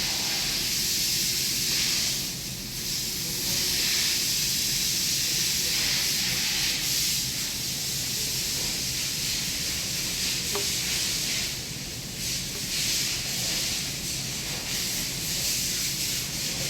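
A steady hiss, strongest in the upper range, running with only brief dips and no clear events.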